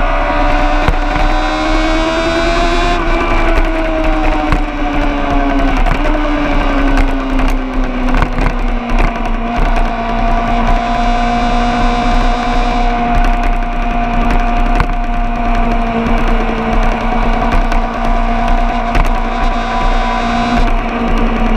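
Vehicle engine running at sustained revs: its pitch rises a little, sinks over several seconds from about three seconds in, then holds steady for the rest.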